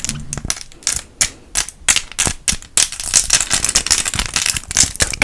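Plastic pen caps worn on the fingertips as mock acrylic nails, tapped together close to the microphone: a quick, irregular run of dry clicks.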